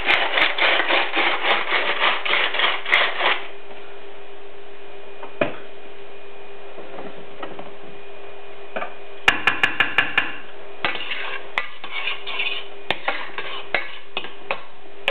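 Kitchen handling sounds: quick rhythmic scraping at about six strokes a second for some three seconds, then a faint steady hum. After that come a quick run of clicks and scattered clatter and rustling as food is put by hand into a stainless steel pot of onions.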